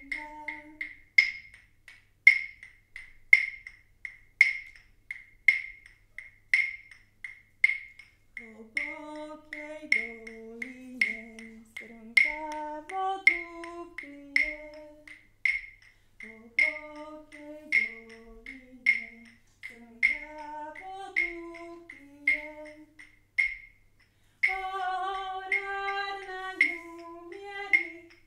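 A woman singing a slow melody in short phrases over a sharp, evenly spaced click about once a second. The singing comes in about a third of the way through, breaks off a few times, and returns louder near the end.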